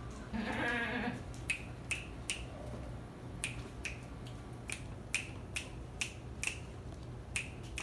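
Ten-day-old goat kids coming down stairs: one short, wavering bleat near the start, then about a dozen sharp, irregular clicks of their small hooves striking the steps.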